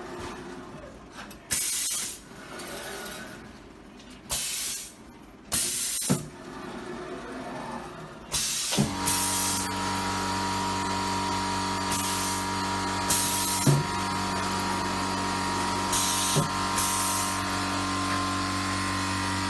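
Pneumatic heat press's air valves letting out repeated short, sharp hisses of compressed air as the platen is driven down and lifted. About nine seconds in, a steady machine hum with a low tone starts and keeps running under the hisses.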